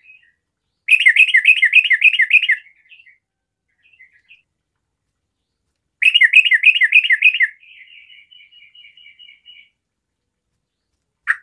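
Yellow-vented bulbul (trucukan) singing: two loud phrases of rapid, bubbly repeated notes, about a second in and again about six seconds in, each trailing off into softer chatter. A sharp click near the end.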